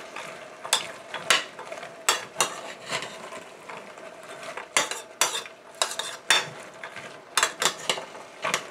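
Metal spoon stirring soaked pinto beans in a metal pressure cooker pot: irregular clinks, knocks and scrapes of the spoon against the pot as the beans shuffle.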